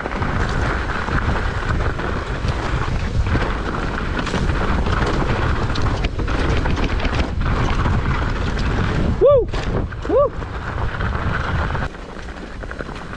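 Mountain bike descending a rough, rutted trail: wind buffeting the helmet-camera microphone over the clatter and knocks of tyres and bike on the ground. Near the end there are two short squeaks a second apart that rise and then fall in pitch. The noise drops off sharply about twelve seconds in as the bike slows.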